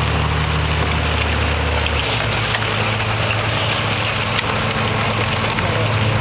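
Tracked armoured vehicle's engine running steadily, with a dense rattling noise over a low hum; the deepest part of the hum drops away about two seconds in.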